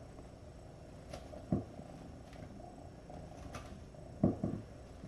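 A kitten plays with a ribbon wand toy: soft thumps, one about a second and a half in and two quick ones near the end, over a steady cat purr.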